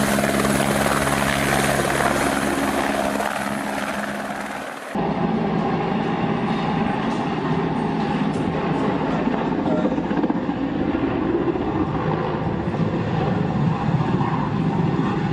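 Helicopter rotor and turbine noise. First a light single-engine helicopter runs with a steady, pulsing rotor tone that fades away. About five seconds in it cuts to the denser, rougher beat of a large Mil Mi-8-type transport helicopter flying low.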